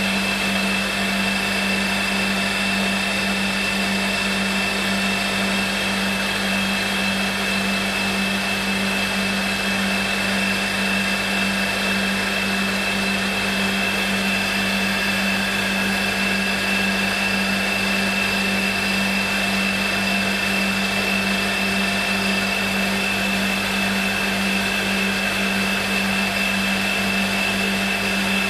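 Milling machine spindle running steadily, a constant hum with a high whine, as a small sharp cutter is fed slowly into the metal plug of a headphone cable.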